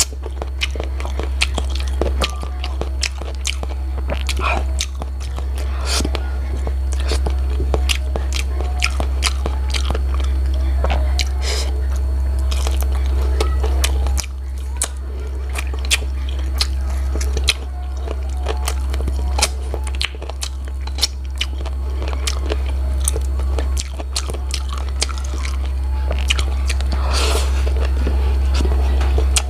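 Close-up mouth sounds of eating chicken feet adobo by hand: chewing, sucking and biting on the skin and cartilage, with many sharp clicks and crunches, over a steady low hum.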